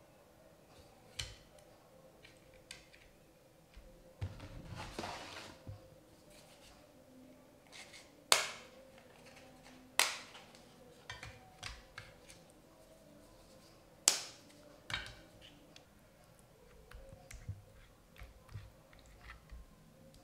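Kitchen handling sounds: scattered clicks and knocks of utensils and dishes, three of them sharp and loud, with a short rustling or scraping stretch about four seconds in.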